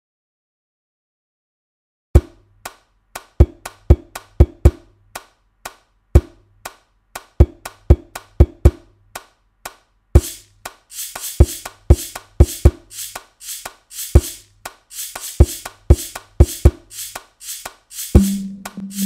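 Rhythmic percussion: sharp knocks over a low drum beat after a short silence, joined about halfway through by hissing, shaker-like hits, with a pitched note coming in near the end.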